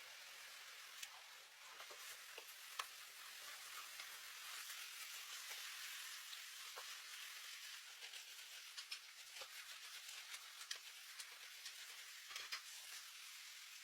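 Food frying in hot oil in a pan: a soft steady sizzle with frequent small crackles and pops.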